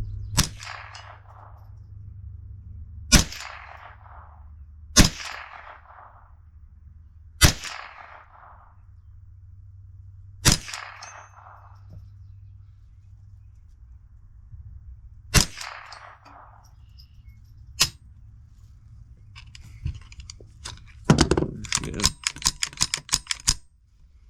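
Gunshots fired singly every few seconds, each followed by a ringing clang of a struck steel target. Near the end comes a fast string of about a dozen shots, after which the gun is empty.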